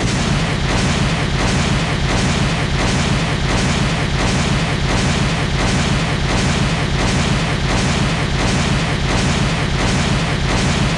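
Synthetic laser-blast sound effect: a dense, booming noise with a heavy rumble, pulsing evenly about twice a second.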